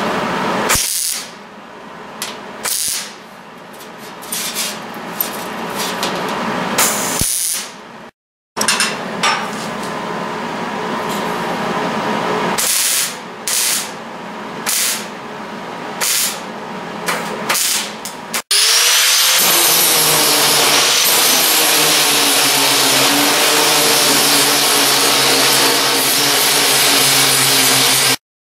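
Short bursts from a hand power tool and knocks as a steel sheet is worked and handled. Then, with an abrupt change about two-thirds of the way through, an angle grinder runs steadily and loudly while cutting sheet steel.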